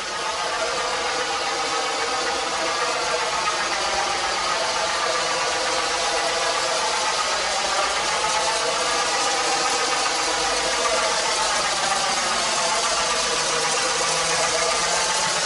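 Lego train running steadily along its track inside a long pipe: an even motor and wheel rumble with a hollow, slowly shifting ring from the pipe.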